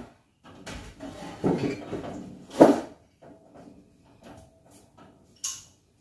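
Knocking and rustling of objects being handled, with a sharp knock about two and a half seconds in and a short click near the end.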